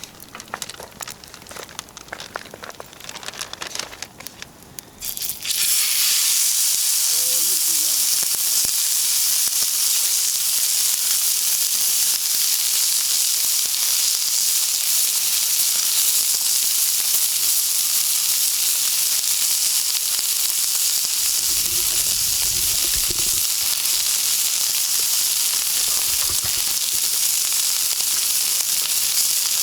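Faint crackling for the first few seconds, then, from about five seconds in, a loud steady sizzle of food cooking on a grill over a campfire.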